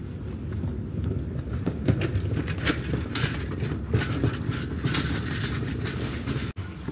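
City street noise: a steady low rumble with irregular clacks over it, dropping out briefly near the end.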